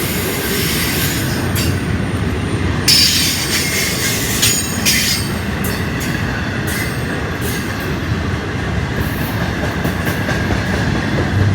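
Freight train rolling past with a steady rumble of wheels on rail and high-pitched wheel squeal against the rails, loudest from about three to five seconds in.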